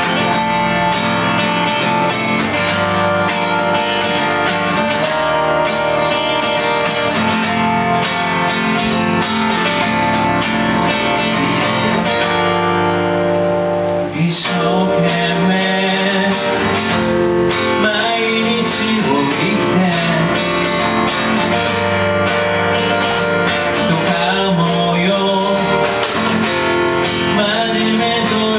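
Live acoustic duo: strummed acoustic guitar and Yamaha keyboard play an instrumental passage, then a man's singing voice comes in about halfway through over the same accompaniment.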